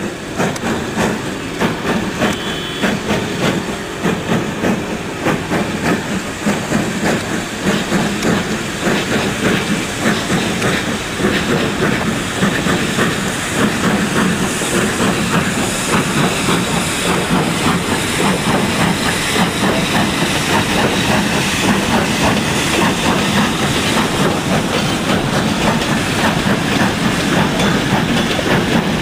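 Steam locomotive hauling a passenger train past: a rapid, steady beat of exhaust and steam hiss with the coaches' wheels clattering over rail joints, growing a little louder about halfway through.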